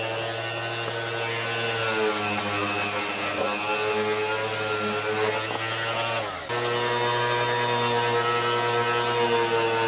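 Electric orbital sander running against a plastic scooter fairing panel: a steady motor hum whose pitch wavers slightly as it is pressed into the work. About six and a half seconds in, the sound dips briefly, then a steadier run starts again.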